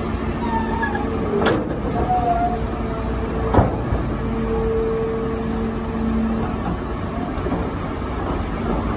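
Diesel engines of a Kobelco excavator and a dump truck running in a steady drone, with two sharp knocks about one and a half and three and a half seconds in, the second the louder.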